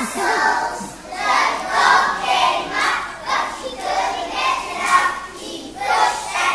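A group of young children singing together, in short phrases that come round about once a second.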